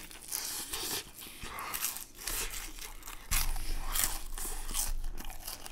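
A person chewing a mouthful of grilled saury close to the microphone: a run of short, wet, smacking chews, a little louder from about three seconds in.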